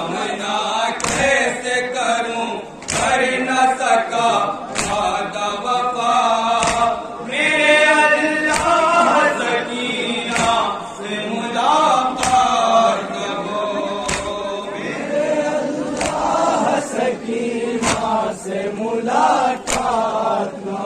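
A noha (mourning lament) chanted by a man through a microphone, with a crowd of men chanting along. Sharp strikes land about once a second to keep time, which fits chest-beating (matam).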